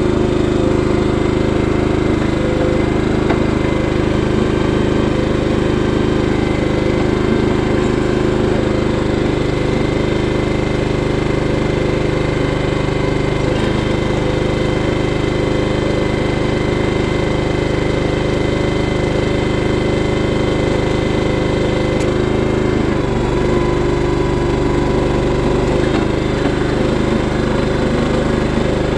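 Small gasoline engine of a trencher running steadily under load while digging a trench, its pitch shifting slightly about two-thirds of the way through.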